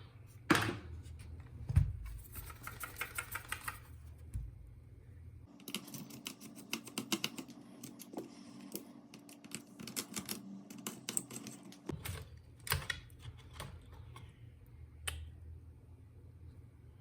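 Rapid irregular clicks and taps of small plastic and metal laptop parts being handled during disassembly of an HP EliteBook 8470p. The clicks are densest in the middle of the stretch, over a low steady hum.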